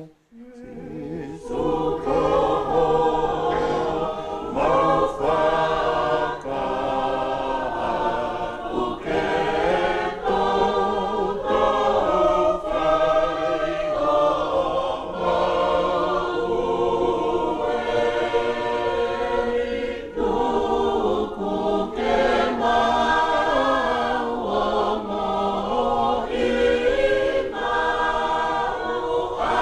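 A congregation singing a hymn together, the massed voices coming in about a second in.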